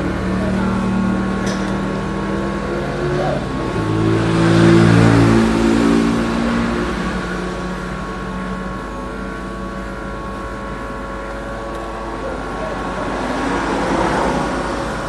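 Hot air rework gun blowing steadily, a rushing drone with a low hum that swells about four to six seconds in.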